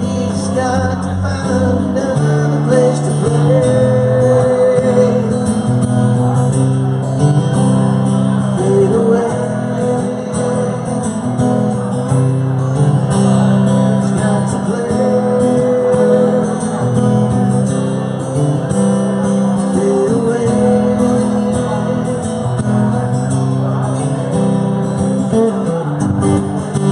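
A live band playing an instrumental passage of a soft-rock song: a sliding lead melody over strummed guitar and a steady bass line.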